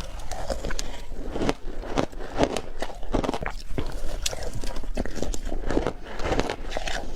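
Frozen matcha ice being bitten and crunched between the teeth: a steady run of irregular sharp crunches, with chewing in between.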